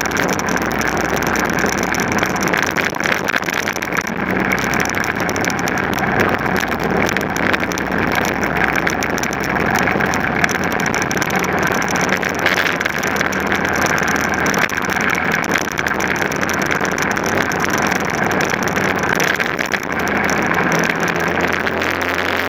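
Onboard sound of a racing vehicle's engine running steadily at speed around a track, a dense, even drone with little change in pitch.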